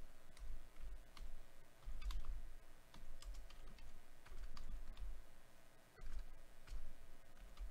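Faint, scattered light clicks of computer keys and a mouse, a dozen or so at irregular intervals, with soft low thumps between them.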